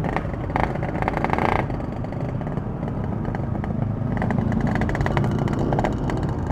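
Ported Yamaha RX-King's two-stroke single-cylinder engine running, its exhaust a rapid string of pulses that picks up in two stretches, around the first second and again from about four to six seconds in.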